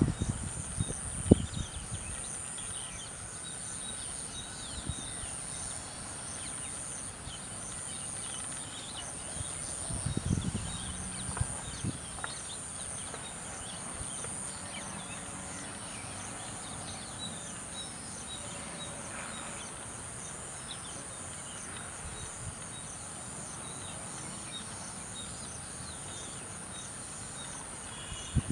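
Steady high-pitched insect drone, with a second insect chirping in a regular pulse just below it. A few low thumps come near the start and about ten seconds in.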